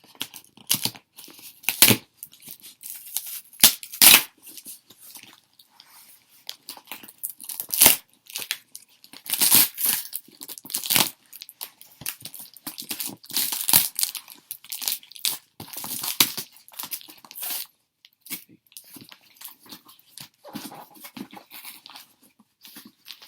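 Packing tape being torn and peeled off a cardboard shipping box, in irregular rasping strokes with crinkling of the packaging.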